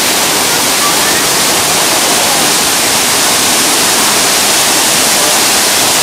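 Waterfall plunging onto rocks and into the pool at its base: a loud, steady rush of falling water.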